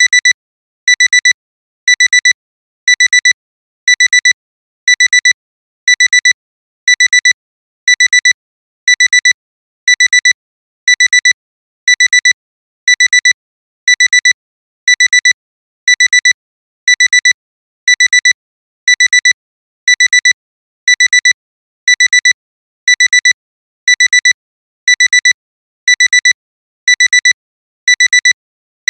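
Alarm clock alarm beeping: a high-pitched electronic beep repeating in short quick clusters about once a second, steady and unchanging, signalling that the timer has run out.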